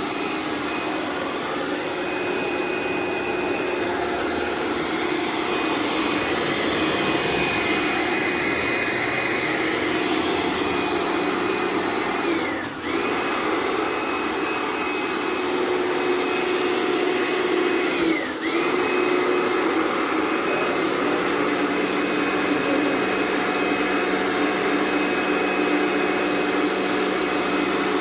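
A machine's motor running steadily, a whine with a steady hum over a blowing hiss. Twice, about 13 and 18 seconds in, its pitch dips briefly and comes back up, as if it were momentarily loaded.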